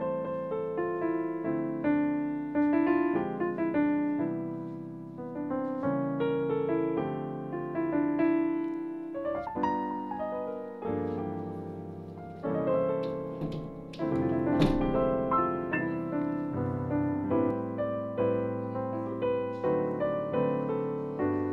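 Background piano music, a steady run of single notes and chords, each one fading after it is struck.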